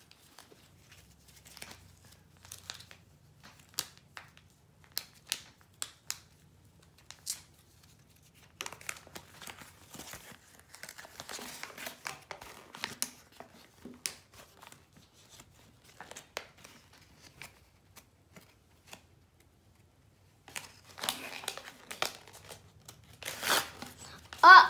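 A folded glossy paper toy-insert leaflet being handled and unfolded: scattered sharp crinkles and paper rustles, with denser stretches of crinkling about nine seconds in and again near the end.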